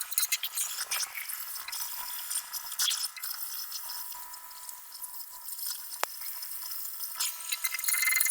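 Torch work on a steel backhoe bucket: a steady crackling sputter with many small clicks and one sharp pop about six seconds in.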